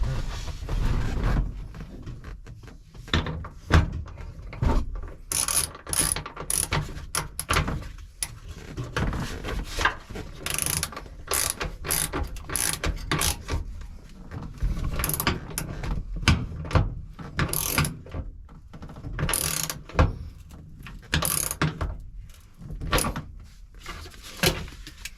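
Hand ratchet wrench clicking in repeated short runs, with scattered knocks, as a seat belt anchor bolt is worked into the car body.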